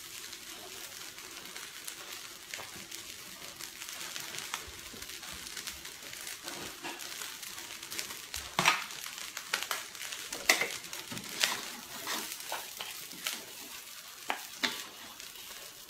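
Fried rice sizzling in a steel wok, a steady hiss. About halfway through, a wooden spatula starts scraping and knocking against the wok several times as the rice is scooped out.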